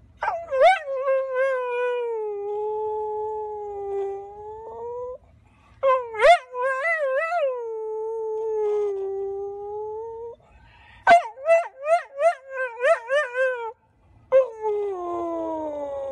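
A large white spitz-type dog howling: four long drawn-out howls with short pauses between them. The third is broken into quick wavering yips, and the last one swoops down and rises again.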